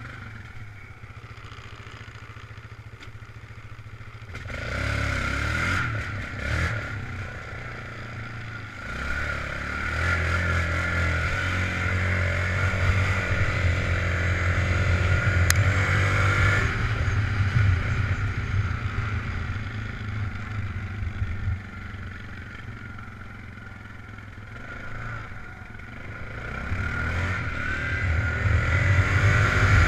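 ATV engine running as the quad is ridden over rough trail, picking up about four seconds in and pulling harder from about ten to twenty seconds. It then eases off for a few seconds and speeds up again near the end.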